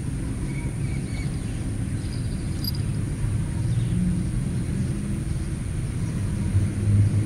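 Steady low outdoor rumble with a few faint high chirps, growing louder near the end.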